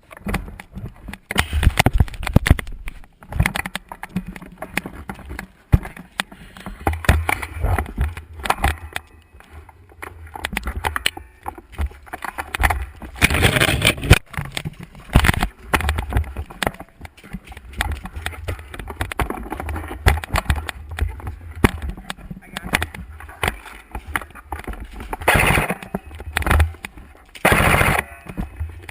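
A SCAR-L airsoft rifle carrying the camera, firing in short rapid bursts amid repeated knocks and rustling from the gun being handled and carried.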